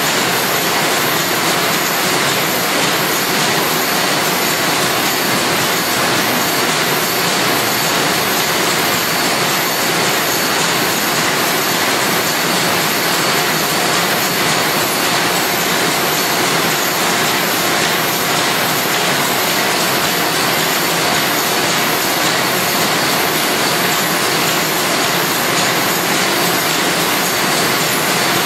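Automatic pocket envelope making machine running at production speed: a steady mechanical clatter of rollers, folding and feeding mechanisms, with a faint even beat.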